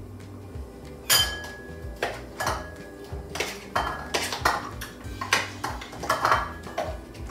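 A metal utensil scraping and knocking against a food chopper's bowl, knocking out the chopped aromatics in a string of irregular clinks and knocks.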